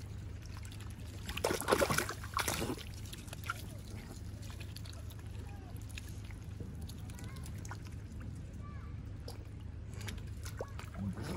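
Water sloshing and splashing as mute swans and Canada geese dip their bills into the surface to feed, with a few louder splashes about two seconds in.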